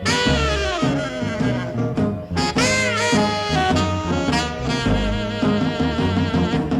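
Background swing-style jazz music with saxophone and brass over a walking bass line.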